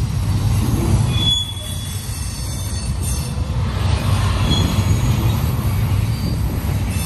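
Double-stack container cars of a CSX intermodal freight train rolling past, a steady low rumble of wheels on rail with brief high wheel squeals now and then.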